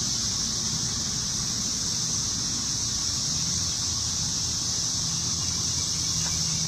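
Steady high-pitched drone of an insect chorus in grassland, with a low outdoor rumble beneath; a faint low steady hum joins about halfway through.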